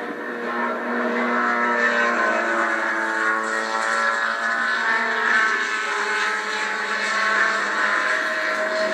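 Several H Production race cars' engines running at high revs together as the cars pass, their pitches overlapping and shifting, getting louder about a second in. They are heard thin and without bass through a television speaker.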